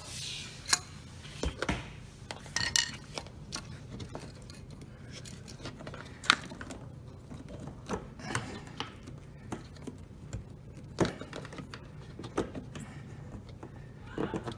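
Irregular taps, clicks and clinks of a screwdriver being struck with a mallet and parts being worked into place under a dishwasher's spray arm motor, the sharpest knock about six seconds in, over a low steady hum.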